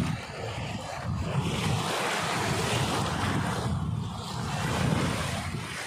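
Small waves washing in over sand in shallow water, a steady rushing that grows louder about five seconds in, with wind buffeting the microphone.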